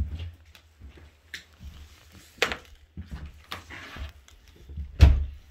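Knocks and clicks as a wooden interior door is handled and opened, over the rumble of a phone being moved; a heavy thump about five seconds in is the loudest.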